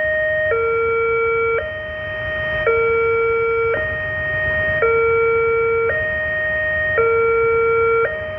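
Railway level-crossing warning alarm: an electronic two-note signal alternating evenly between a lower and a higher note, each held about a second, warning that a train is approaching while the barriers are down.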